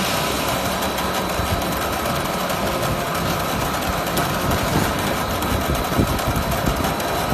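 Spindleless veneer peeling lathe running steadily, a continuous machine noise with dense fine clicking through it.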